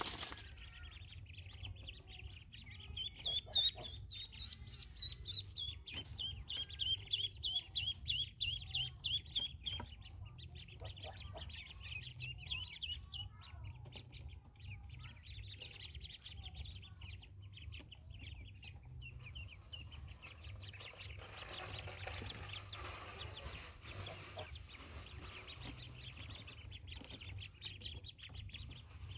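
Ducklings peeping: rapid strings of high calls, several a second, loudest in the first ten seconds and fainter after that.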